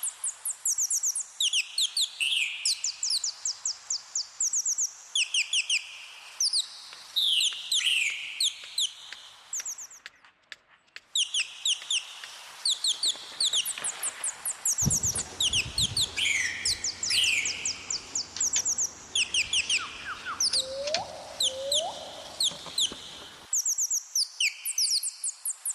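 Bird calling in fast runs of high-pitched chirps, phrase after phrase, with a short break about ten seconds in. A low rumble runs under it for several seconds past the middle.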